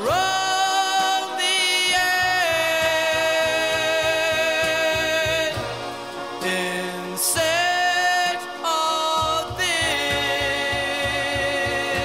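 Background music: a song with long held sung notes over a steady low beat.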